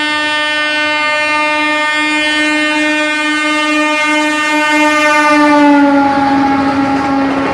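WAG-5P electric locomotive's horn sounding one long unbroken blast, a warning to people on the tracks. Its pitch drops slightly about five and a half seconds in, and the rattle of the passing train grows near the end.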